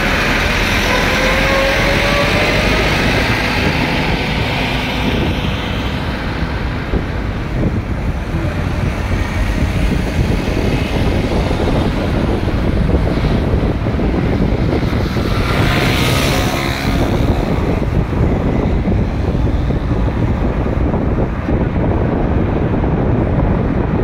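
Steady engine and road noise from inside a moving vehicle in traffic. The engine note rises as it accelerates in the first couple of seconds, and a louder hiss swells and fades about 16 seconds in as traffic passes close by.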